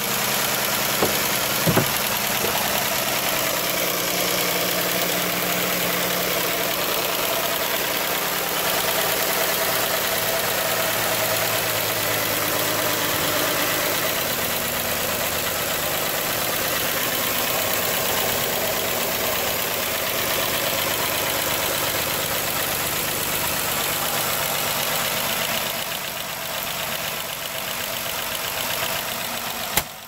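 3.6L Pentastar V6 idling with a tick from the rear bank's valvetrain. The cause is a broken rocker arm: its roller bearing has come apart and the camshaft lobe is chewing into it.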